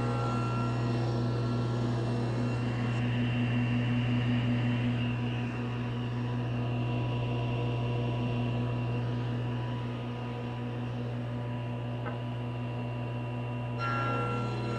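Table saw running with a 40-tooth Freud Fusion combination blade, taking a light skim cut along the edge of a maple board with a steady feed. The hum is steady, with the tone shifting near the end.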